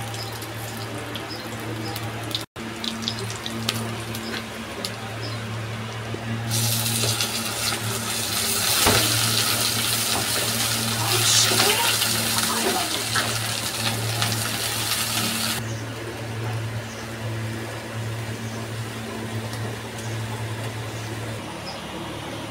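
Spices frying in hot oil in a wok: cumin seeds crackling at first, then a louder, steady sizzle through the middle as the masala fries and is stirred. A steady low hum runs underneath.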